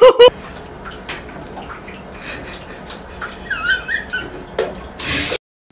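A baby's loud squeal right at the start, then a baby's high wavering cry about three and a half seconds in, followed by a brief rush of water poured from a bottle.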